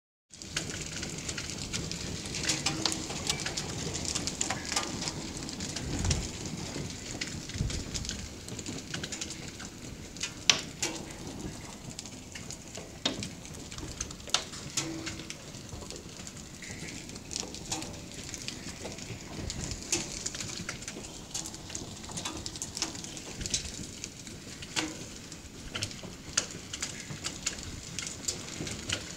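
Hail mixed with rain falling on a concrete driveway: a steady hiss of rain with scattered sharp ticks of hailstones striking the ground.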